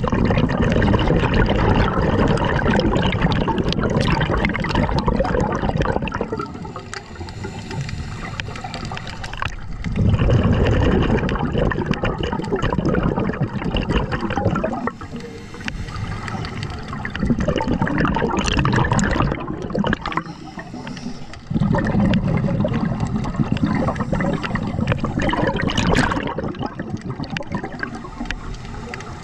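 Scuba diver breathing underwater through a regulator: long rushes of exhaled bubbles, four of them, each lasting a few seconds, with quieter gaps between.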